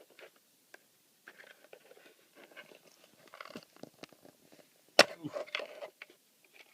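Hands handling a plastic solar shed light and its cable, with small rustles and clicks, then one sharp loud snap about five seconds in as a stiff plug is pulled out of the light unit's socket, followed by a short rattle.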